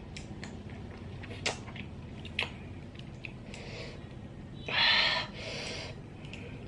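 Faint clicks of a toothpick against cooked sea snail shells as the meat is picked out, then a short breathy hiss lasting about half a second, around five seconds in.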